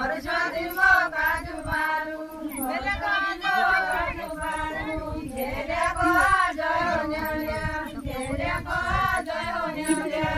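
Group of women singing a deuda folk song together, unaccompanied, in a repeating, chant-like melody.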